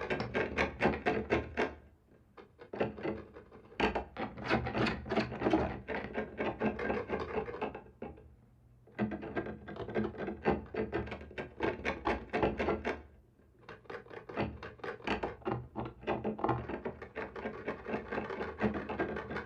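Scratching on a wall, in quick rasping strokes that come in bursts of a few seconds, broken by three short pauses.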